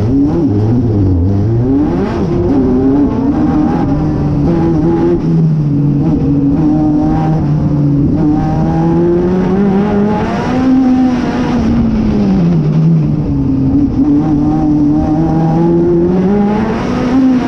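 National Hotrod race car's engine heard from onboard at racing speed, its pitch climbing and falling again several times as the driver accelerates and lifts, over a steady rush of road and wind noise.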